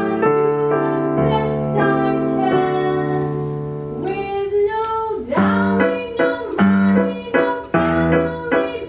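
Piano accompaniment with singing: held chords for the first few seconds, then short chords repeated at a steady beat from about five seconds in.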